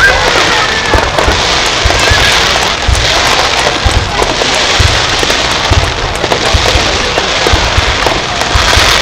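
Starmine fireworks barrage: a dense, continuous run of shell bursts, with many irregular low booms over steady crackling.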